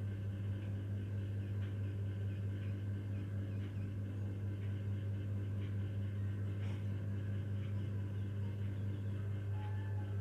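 A steady low hum, with a few faint short ticks here and there.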